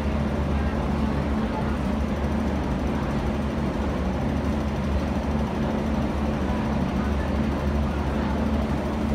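Steady low drone of an underground metro station platform: a constant hum of ventilation and machinery, with no train arriving or leaving.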